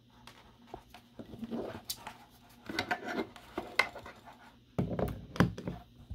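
Handling noise from a power cable and plug adapter being picked up and moved over a table: irregular rustles, taps and knocks, the loudest about five seconds in, over a faint steady low hum.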